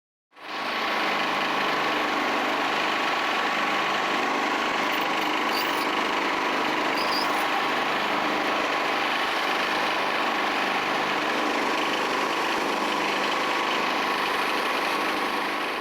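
Small gasoline engine running at a steady speed, fading in just after the start and fading out at the end.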